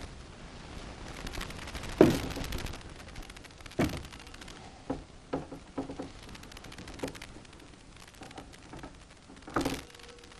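Longcase clock being hand-wound with a crank key: the click ratchets over the ratchet wheel in a fast run of clicks as the weight's cable winds onto the drum, with a few louder knocks at irregular intervals.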